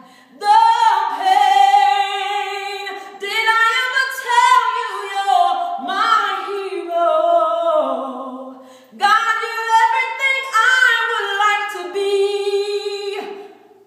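A woman singing a cappella, solo with no accompaniment: long held notes and melodic runs in several phrases with short breaths between them.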